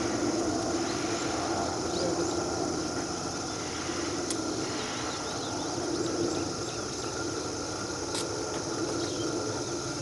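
Outdoor pond-side ambience: a steady low hum with faint, short, high bird chirps scattered through it and a couple of sharp ticks.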